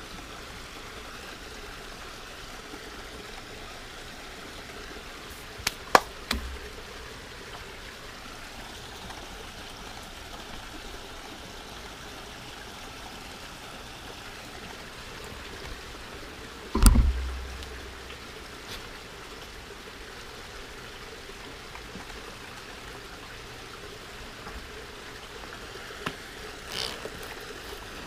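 Steady rushing background with handling sounds from a glass terrarium bowl being worked by hand: a couple of sharp clicks about six seconds in and a heavy thump at about seventeen seconds, the loudest sound. Near the end, a brief hiss of a trigger spray bottle misting the plants.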